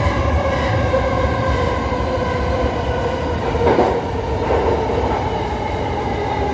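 E217-series electric train running, heard from inside the front car: the traction motor whine, several tones together, glides slowly down in pitch as the train slows, over a steady low rail rumble. A short clatter from the wheels comes near the middle.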